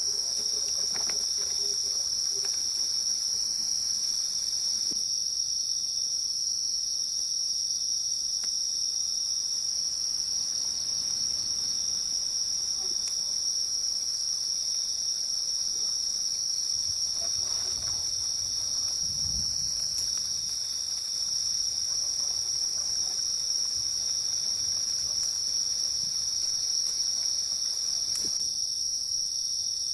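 Forest insects, cricket-like, keeping up a steady, high-pitched chorus without a break. Faint rustles sound underneath now and then, most around the middle.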